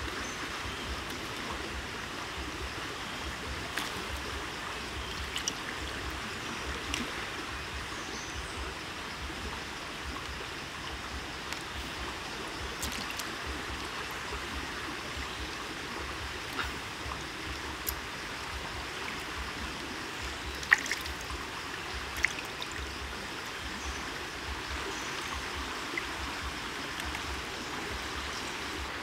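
Squid being washed by hand in a wok of water: steady trickling and sloshing water, with a few small sharp drips and splashes.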